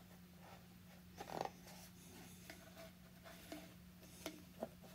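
Faint handling sounds: soft rubs and small clicks as yellow Tygon fuel line is worked through a chainsaw's plastic tank, the loudest about a second in, over a steady low hum.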